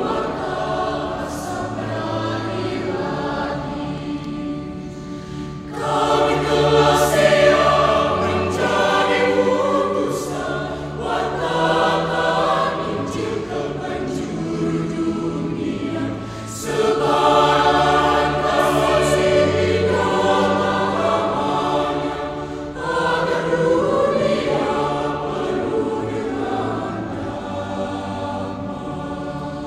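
Mixed choir of children and adults singing, in phrases that swell louder several times.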